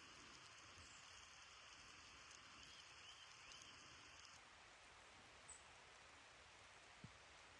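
Near silence: a faint steady hiss, with a soft tick about seven seconds in.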